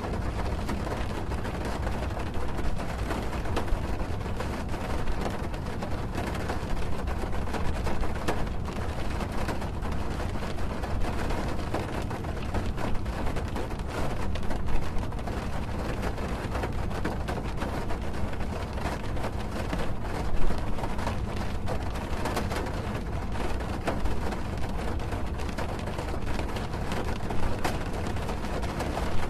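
Rain drumming steadily on a car's roof, heard from inside the car: a dense patter of drops with occasional louder taps and a low rumble underneath.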